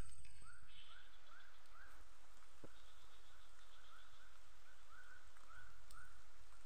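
A small animal calling in runs of short rising chirps, about three a second, with a pause of a couple of seconds in the middle, over a steady low rumble.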